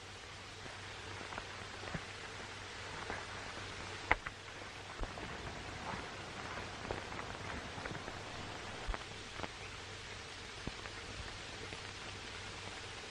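Steady hiss and low hum of an old film soundtrack, with scattered faint clicks and pops at irregular intervals.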